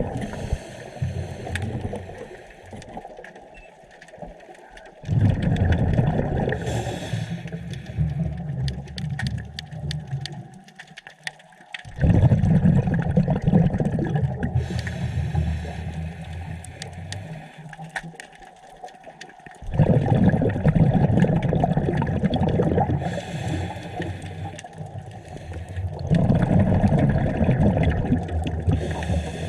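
Scuba diver breathing through a regulator underwater: exhaled bubbles rumble in bursts that start roughly every seven seconds, with a fainter hiss between them.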